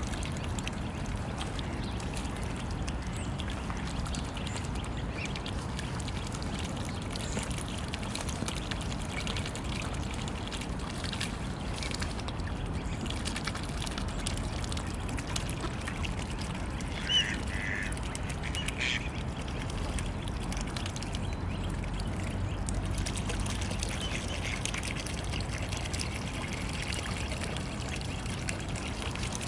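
Mute swans and their cygnets dabbling and sifting floating pellets from the water surface, a steady wet slurping and splashing. A few short bird calls come through about halfway.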